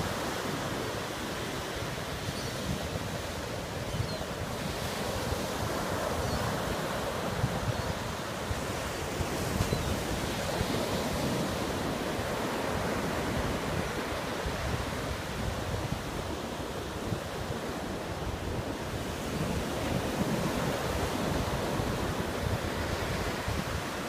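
Ocean surf: small waves breaking and foam washing up the beach, a steady rushing wash that swells and eases gently.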